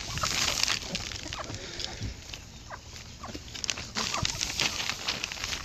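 Flock of chickens pecking and scratching at scattered food on dry dirt: a busy patter of quick pecks and scrapes, with a few short clucks.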